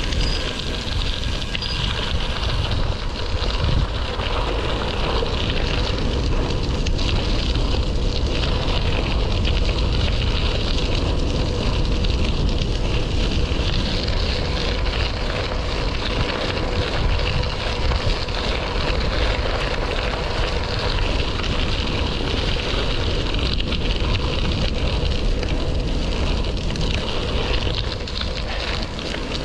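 Steady wind rush buffeting the microphone during a bicycle ride, mixed with the continuous rolling noise of the bike's tyres.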